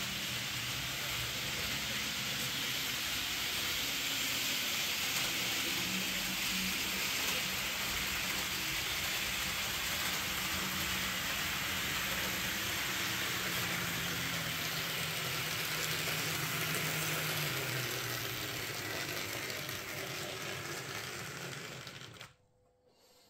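H0-scale model train running on the layout track: a steady rushing hiss from the wheels and motor, with a low hum that fades about three quarters of the way through. The sound cuts off suddenly near the end.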